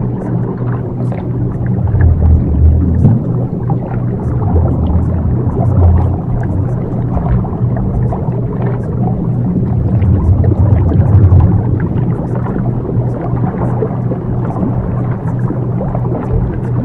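Ambient backing track of a subliminal affirmation recording: a steady low drone with a rumbling layer that swells and fades every few seconds, strongest about two seconds in and again around ten seconds, with faint scattered ticks like light rain. The drone carries the recording's delta-wave frequency layer.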